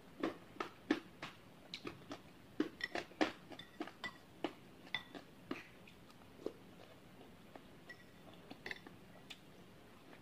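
Close-up eating sounds: chewing and mouth clicks while eating bakso aci (chewy tapioca meatballs) in broth, with a few light clinks of a metal spoon against the ceramic bowl. The short sharp sounds come thick through the first three or four seconds, then thin out.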